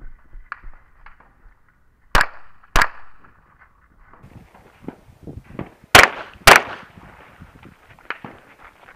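Pistol shots fired in two pairs: two sharp cracks a little over half a second apart about two seconds in, then two more about half a second apart about six seconds in, with quieter scuffing and clicks between.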